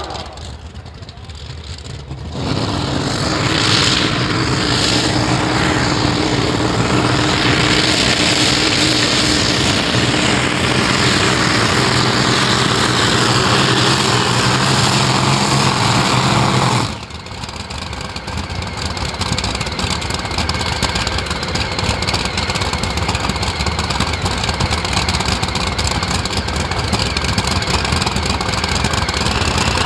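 Modified-class pulling tractor's engines at full power during a pull, starting about two seconds in. About 17 seconds in they cut back sharply to a lower, steady running sound.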